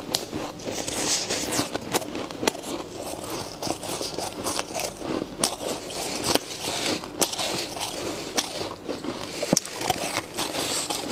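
Powdery freezer frost crunching and crackling as gloved hands dig into a heap of it and pack a handful, with many sharp crackles scattered through.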